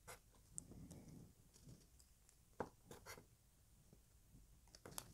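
Faint scratching of a pen making tick marks on a paper list, with a few small clicks and taps.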